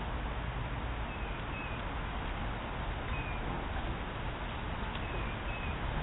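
Steady background hiss and low rumble picked up by a trail camera's microphone, with a few faint, short, high chirps scattered through it.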